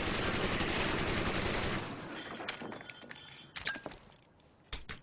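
Dense automatic gunfire, a continuous volley that thins out after about two seconds. A few scattered sharp clicks and metallic clinks follow.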